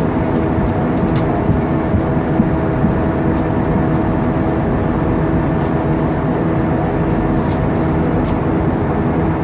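Steady cabin noise inside an Airbus A320-232 airliner in flight: the even rush of engines and airflow, with a few faint steady tones under it.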